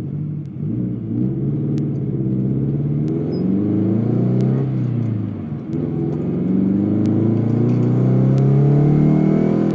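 Scion FR-S's 2.0-litre flat-four boxer engine heard from inside the cabin while driving, its pitch climbing and falling with the revs and dipping briefly a little over halfway through.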